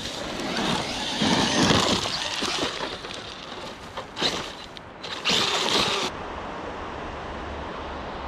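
Traxxas Maxx RC truck's electric motor whining, rising and falling in pitch as it is driven, loudest in the first few seconds. Two shorter loud bursts follow, the last cutting off sharply about six seconds in.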